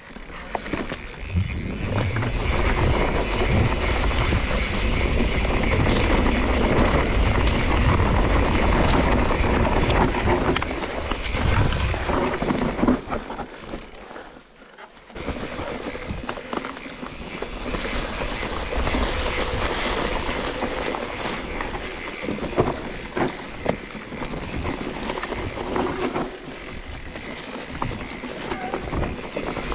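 Mountain bike ridden over rough trail: a continuous rattling rumble of tyres and frame with many small knocks, dropping away for about a second near the middle before carrying on.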